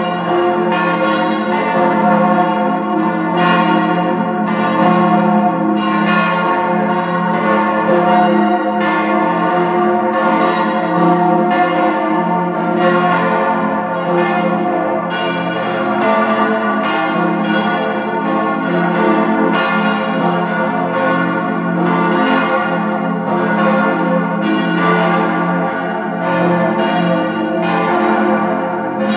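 Peal of the four bronze church bells cast by Rüetschi of Aarau in 1904, tuned F–A–c–f as an F-major chord, the largest weighing 8137 kg. They are swinging together, with strike after strike overlapping into one continuous ringing.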